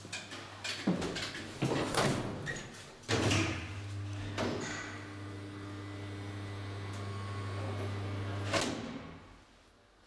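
Several clunks and knocks from the elevator's sliding doors, then about three seconds in the elevator's drive starts with a steady low hum as the car travels. The hum ends with a clunk near the end as the car stops.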